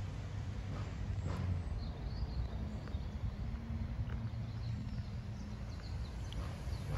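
Cats crunching dry kibble: small irregular crunches and clicks over a steady low rumble, with a few faint bird chirps.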